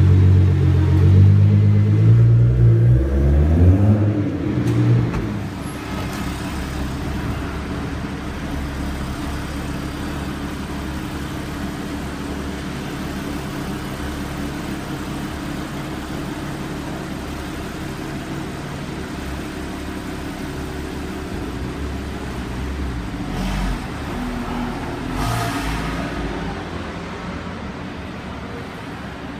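Nissan GT-R's twin-turbo V6 idling loudly, with one short rev that rises and falls about three seconds in. After a cut, a Porsche Boxster's engine idles steadily at a lower level and then moves off slowly near the end.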